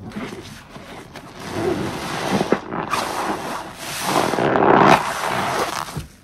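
A soaked kitchen sponge squeezed and kneaded by gloved hands in thick dish-soap foam: wet squelching and the fizz of bubbles, building up and loudest about four to five seconds in.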